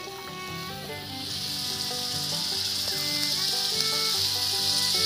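Mutton curry sizzling in the cooking pan, the sizzle growing louder about a second in as the spiced meat and freshly added water heat up, with background music.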